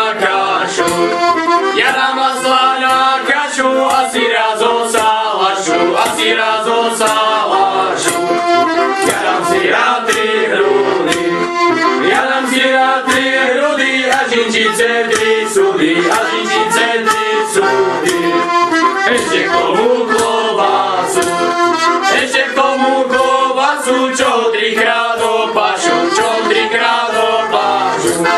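Accordion playing a lively folk carol tune, melody over chords, with a steady clicking beat throughout.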